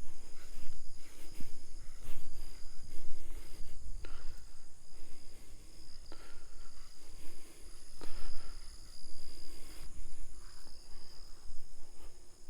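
Steady high-pitched insect chorus, several buzzing tones held together throughout, over a low rumble.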